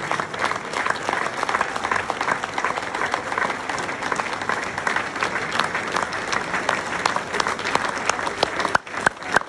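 Audience applauding: dense clapping that thins to a few scattered claps near the end.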